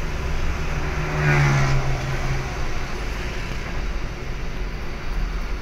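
Steady road-traffic rumble of vehicle engines and tyres. About a second in, a short pitched sound lasting about a second rises above it.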